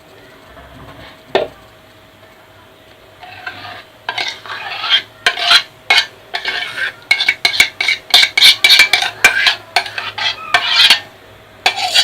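A utensil scraping thick lemon pastry cream out of a saucepan onto the harcha, in quick repeated strokes from about three seconds in, after a single knock on the pan a little over a second in.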